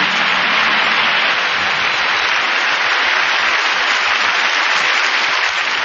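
Audience applauding steadily and loudly, with the tail of music fading out in the first second.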